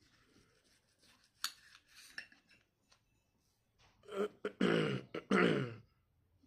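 A man clears his throat with three harsh, voiced coughs, about four seconds in, after a few faint clicks.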